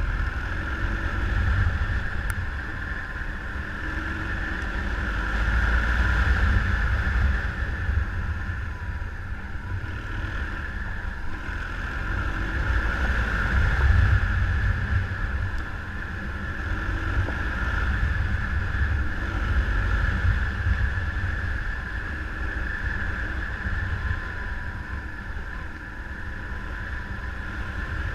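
Adventure motorcycle running on the move, its engine rumble mixed with wind rushing over the microphone, swelling and easing as speed changes.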